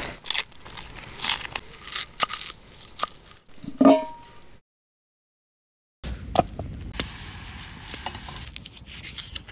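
Knife slicing through a red onion against a steel camp plate: a run of sharp cutting clicks and scrapes. Just before the middle comes a brief ringing metallic scrape from a steel pot, then about a second and a half of dead silence, then a wood campfire crackling with scattered pops under a low rumble.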